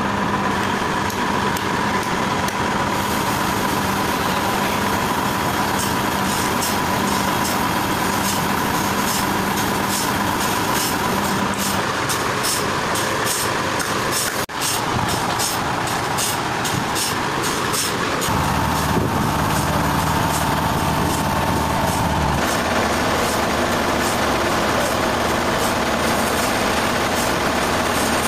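Sawmill machinery running steadily, with a steady hum and a fast high ticking through the middle. The sound drops out briefly about halfway through, and its low hum changes twice in the later part.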